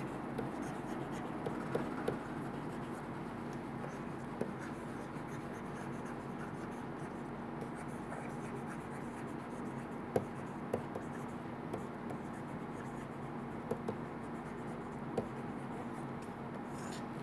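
Faint scratching and light tapping of a stylus writing on a tablet screen, with scattered small clicks. A steady low hum runs underneath.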